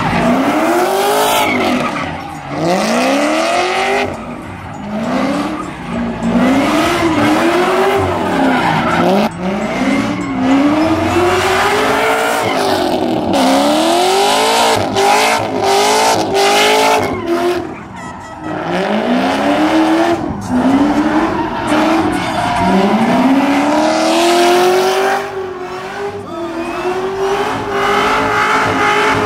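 Cadillac CTS-V coupe's supercharged V8 revving hard while the car does donuts: the engine note climbs and drops back over and over, with the rear tyres squealing as they spin and smoke on the asphalt.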